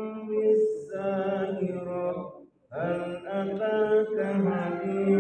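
A girl reciting the Quran from memory in melodic chanted style, holding long, wavering notes. There is a brief breath pause about two and a half seconds in, then she resumes.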